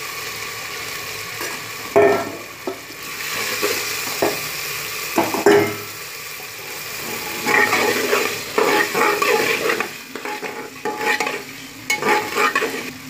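Peas and potatoes frying in oil in a pressure cooker with a steady sizzle, while a metal spoon stirs them, scraping and knocking against the cooker's metal wall. The scraping comes in single strokes at first and then quicker and busier through the second half.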